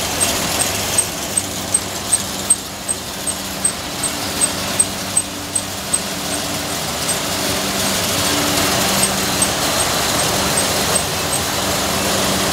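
Packaging machinery and conveyors running: a steady mechanical hum with a sharp, regular clicking about two to three times a second, which thins to occasional clicks after about six seconds.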